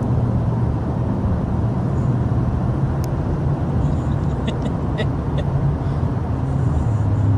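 Steady low drone of engine and road noise inside a moving car's cabin.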